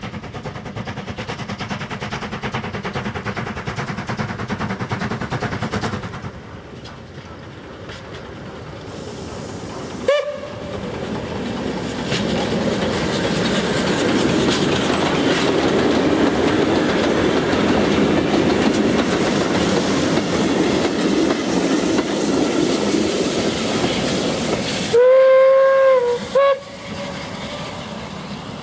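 Steam train running by: a rapid clatter, then a short whistle toot about ten seconds in. The passing train grows loud with rail noise, and near the end comes a long steam-whistle blast followed at once by a short toot.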